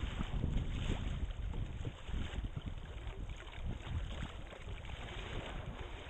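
River water rushing and splashing against a kayak's bow as it runs through a riffle, with wind buffeting the microphone in a low rumble. The rushing eases a little about two seconds in as the water grows calmer.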